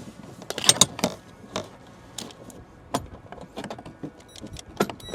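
Irregular sharp clicks and light metallic clinks from hand work on the van's door-area trim, bolt and wiring, about eight in all and loudest about a second in.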